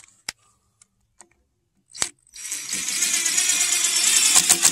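Cordless driver running a screw through a corner of a steel jig into the end of a cedar log. After a couple of light clicks, the motor starts about two seconds in and turns into a rapid, even rattle near the end as the screw drives home.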